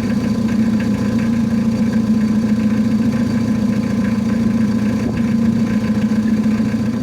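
Newly fitted replacement wiper motor of a 2000 Mitsubishi Adventure running with a steady hum, turning smoothly with its rotation now fine and no longer stalling.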